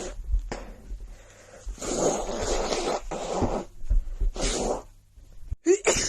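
Several noisy breaths through a nose congested by a cold, each lasting about half a second to a second. A short voiced sound with a bending pitch comes near the end.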